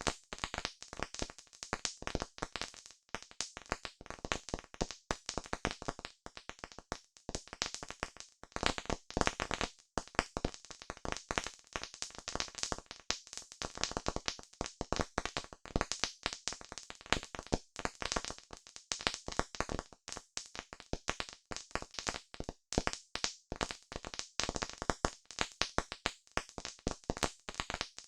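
Campfire crackling: burning wood giving off a dense, irregular stream of pops and snaps, many a second.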